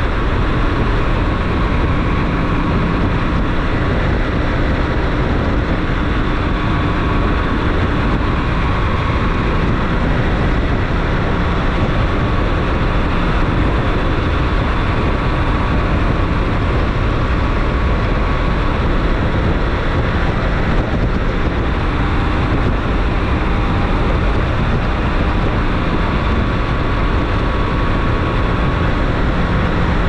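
BMW K1600 GTL's inline-six engine running at a steady cruise, mixed with the rush of wind and road noise, heard from the rider's seat. The sound holds level with no gear changes or revving.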